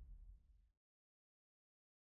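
Near silence: the faint low tail of a fading sound dies away under a second in, then dead digital silence.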